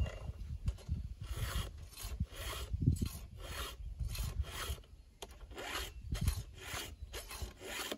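A round chainsaw file in a filing guide rasping across the steel cutter teeth of a saw chain in repeated push strokes, about two a second with short gaps between them: sharpening the chain, a few strokes to each tooth.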